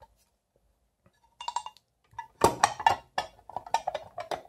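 Clinks and knocks of a floodlight's glass front cover in its metal frame being handled and set down over the housing: a quick run of sharp clinks starting about a second and a half in, the loudest about two and a half seconds in.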